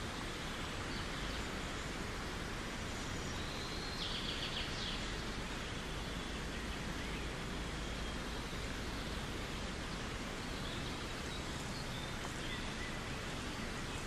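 Steady outdoor background hiss, with a bird giving a short run of quick high chirps about four seconds in and a few faint chirps near the end.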